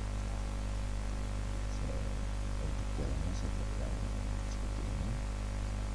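Steady low electrical mains hum on the recording, with a few faint clicks.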